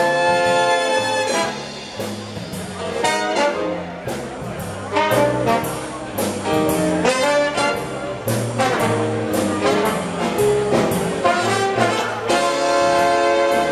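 Live dance orchestra playing an instrumental passage with no vocals, the brass section holding sustained chords over a moving bass line.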